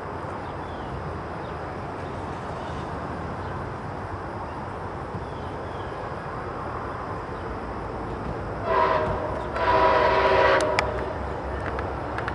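A MARC commuter train's multi-chime air horn sounds a short blast and then a longer one, over the steady low rumble of the approaching train. A few sharp clicks follow the second blast.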